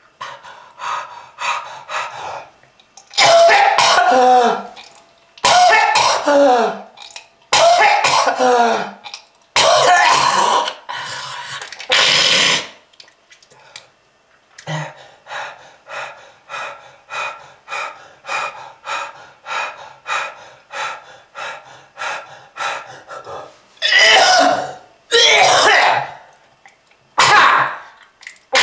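A person's smoker's cough: long, harsh hacking and throat-clearing bouts, strained and falling in pitch, then a run of short, quick coughs about two a second, then two more heavy hacking bouts near the end.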